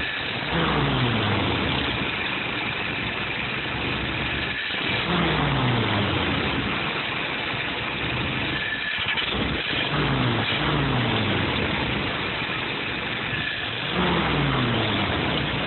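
Car engine with a freshly reworked carburetor idling at about 650 rpm, blipped several times; each time the revs fall smoothly back to a steady idle.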